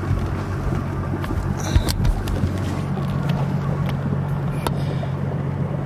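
Yamaha outboard motor on a bass boat idling steadily, a low even hum, with a couple of faint clicks.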